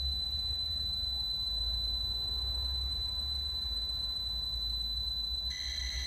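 Sharp pocket-computer data cassette playing back on a Sharp CE-152 cassette recorder: a steady high-pitched pilot tone over a low hum. About five and a half seconds in it turns into a denser mix of several tones as the program data itself begins to load into the PC-1401.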